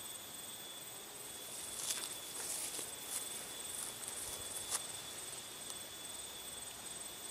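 Rustling and a few sharp clicks from about one and a half to five seconds in, as a man shifts his feet in the grass of a riverbank and crouches down with a fishing pole. A faint steady high whine runs underneath.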